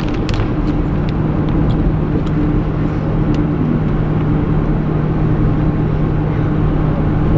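Steady engine drone and road rumble inside a moving van, heard from the cargo area, with a constant low hum and a few light clicks in the first seconds.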